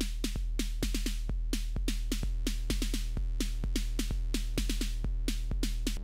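Electronic drum-machine beat, most likely from a Roland TR-8, run through an effects pedal: fast, even short hits about four a second over a continuous deep bass boom.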